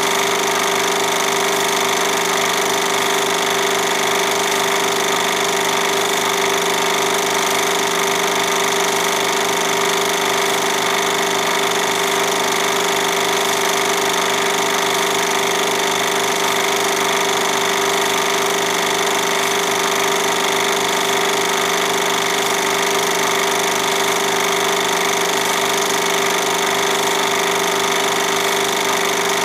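Film projector running: a steady motor hum with a fast, even clatter of the film transport.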